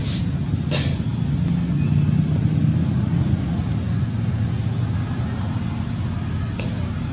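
Steady low rumble with three short dry crackles, near the start, about a second in, and near the end, from macaques tearing fibrous palm fruit husk.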